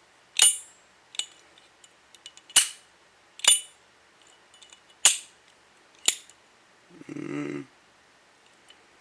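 Slim Armor Zippo lighter's hinged lid being flicked open and snapped shut, about six sharp ringing metallic clinks roughly a second apart. A short duller rasp comes near the end.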